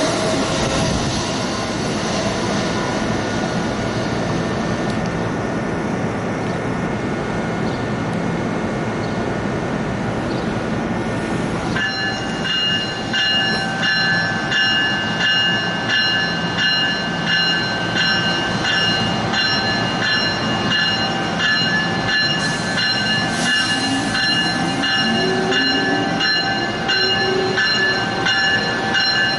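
Train rolling noise that gives way, about twelve seconds in, to a locomotive bell ringing in a steady rhythm as Amtrak's Siemens ACS-64 electric locomotive gets under way from the platform. Near the end a rising whine comes from its traction motors as it starts to pull.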